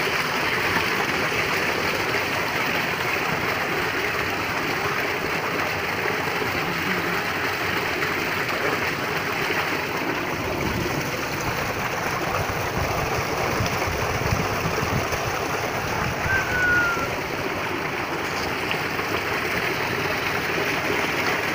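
Water rushing steadily as it pours into and flows along a concrete bathing tank and channel.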